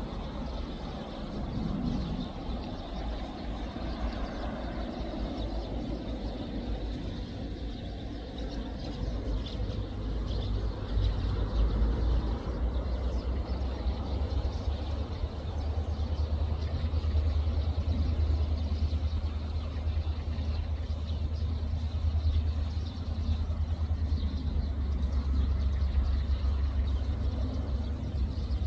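Diesel locomotive hauling a passenger train as it approaches, its engine a steady low drone that grows louder over the second half.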